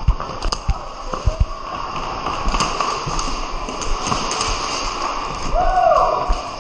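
Irregular thumps and taps of running footsteps jolting a body-worn action camera, with a few sharper clicks. Near the end a voice cries out briefly, rising and falling in pitch.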